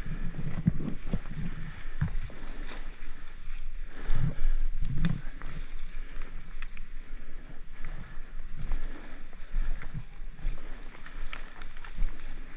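Irregular soft thumps and rustling, with a few sharp clicks and wind noise, from a player moving on foot with a body-worn camera.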